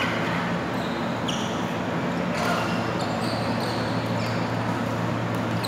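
Badminton rally: a few sharp hits of rackets on the shuttlecock and short squeaks of shoes on the court mat, over a steady low hum in the hall.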